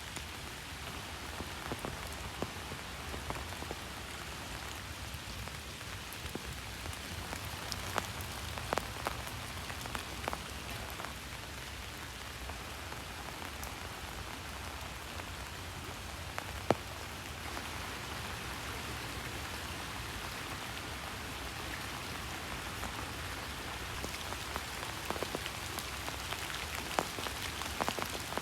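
Steady rain falling, with now and then a louder single drop tapping sharply on a surface.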